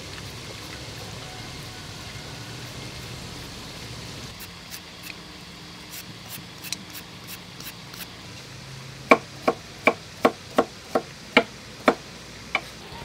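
Knife chopping carrot on a wooden cutting board: a run of about ten sharp knocks, roughly three a second, starting about nine seconds in, with a few lighter ticks before it.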